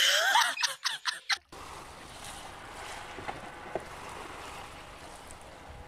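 A man yelling over a few sharp clattering knocks for about a second and a half, then a sudden cut to a steady, fairly quiet hiss of wind and water around a sailboat at anchor.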